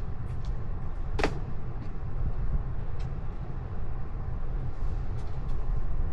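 Vehicle road noise: a steady low rumble, with a sharp click about a second in.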